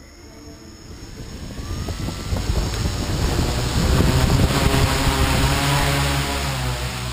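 Radio-controlled helicopter spooling up: a thin rising whine and a growing rotor whir, louder over the first four seconds and then holding steady at full rotor speed, with rotor wash buffeting the microphone.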